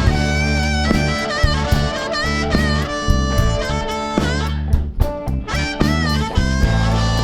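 Blues band playing the instrumental intro of a song: a lead melody with bent, wavering notes over bass and drums.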